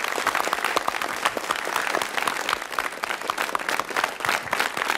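Applause: many people clapping their hands at once, steadily.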